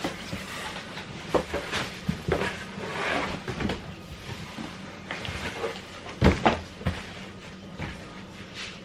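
Cardboard box being handled: scattered knocks, scrapes and rustles, with a couple of louder thumps about six seconds in.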